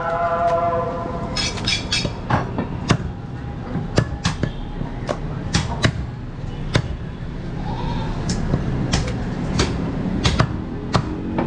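Large butcher's knife chopping goat meat on a wooden chopping block: sharp, irregular knocks, about one or two a second.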